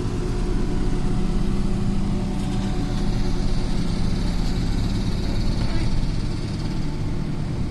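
A turf harvester running steadily as it cuts and rolls sod: a steady engine drone, with a faint high whine about three to five seconds in.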